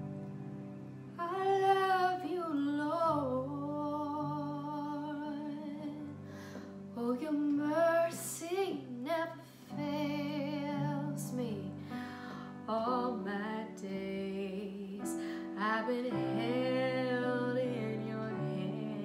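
A woman singing a slow worship song over sustained chords played on an electronic keyboard. Her voice comes in about a second in and runs in long phrases with vibrato, separated by short gaps where only the keyboard is heard.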